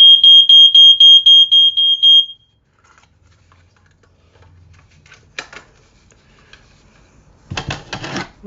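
A Code One CD23 smoke alarm's blue Murata piezo horn sounding a loud, high-pitched, fast-pulsing beep, about four pulses a second, for roughly two and a half seconds, then stopping. A few clicks follow near the end.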